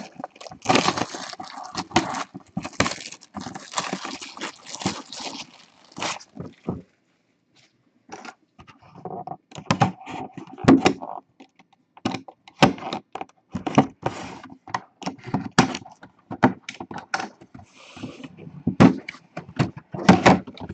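A collectible mini-helmet box being opened by hand: several seconds of crinkling and tearing of plastic wrap and cardboard, a short pause, then a run of sharp clicks, taps and knocks as the box and its contents are handled.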